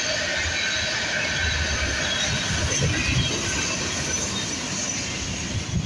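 Freight train of tank cars rolling past: steel wheels running on the rails with a steady rumble and a high, continuous wheel squeal.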